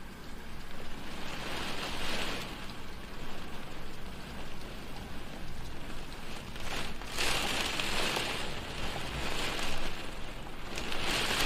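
Rain falling on a window pane, a steady patter that swells louder several times.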